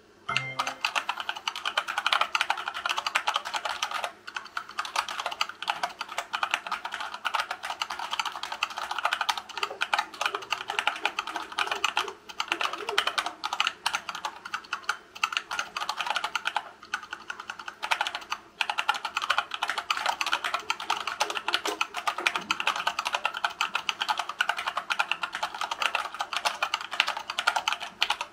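Fast, continuous typing on a hand-wired Dactyl Manuform split keyboard with silicone-lubed Gateron Brown tactile switches in a 3D-printed wood-filament case, at about 60 words a minute. The steady run of key clicks breaks off briefly now and then.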